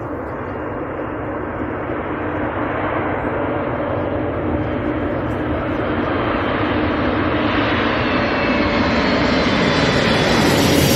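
Antonov An-225 Mriya's six turbofan engines on landing approach, the jet noise growing steadily louder as the aircraft nears and comes low overhead, with a steady low hum beneath it.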